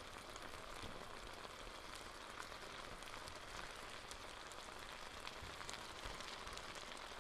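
Chicken and vegetable stir fry in its sauce sizzling and bubbling faintly in an electric skillet, brought to a boil and simmering. A steady soft hiss with small pops, with a spoon stirring through the food.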